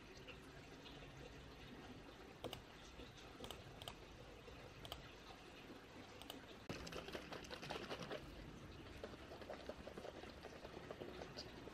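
Quiet ambience with a few light clicks scattered through it, and a soft rustling hiss for about two seconds starting a little under seven seconds in.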